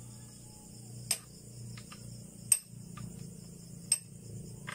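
Hand tools clinking on a boat transmission's steel case as a wrench is worked on its bolts: three sharp metallic clicks about a second and a half apart, with a few fainter ticks between. Insects chirr steadily in the background.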